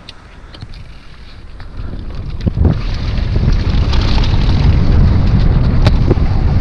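Wind buffeting the microphone of a helmet camera on a mountain bike descending a dirt trail, growing louder over the first three seconds as the bike picks up speed, with tyre rumble and a few sharp knocks from the bike over bumps.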